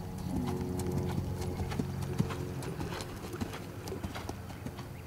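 Hoofbeats of a Thoroughbred gelding cantering under a rider on grass and dirt footing, a run of dull knocks.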